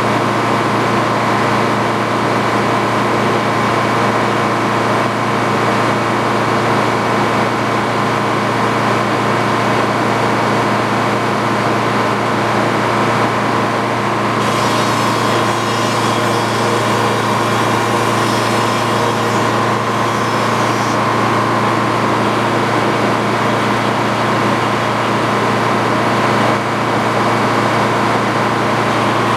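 Steady, loud running of the machinery driving an antique Frick sawmill. From about halfway through, a higher-pitched whine is added for several seconds, then drops away.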